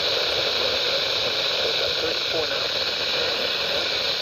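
Weather radio receiver hissing steadily with heavy static, a faint, garbled broadcast voice reading a special marine warning beneath the noise.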